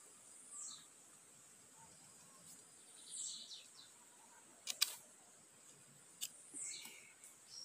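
A bird calls three times, short notes falling in pitch about three seconds apart, over a faint steady high hiss. About midway come a few sharp clicks, the loudest sounds, from green bamboo poles being handled and worked.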